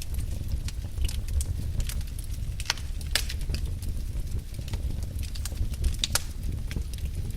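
Wood fire burning in a fireplace: a steady low rumble of flames with irregular sharp crackles and pops.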